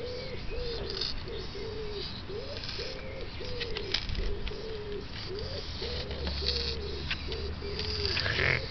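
European hedgehog wheezing with each breath, a short pitched wheeze repeating evenly about twice a second: laboured breathing in a hedgehog that seems ill.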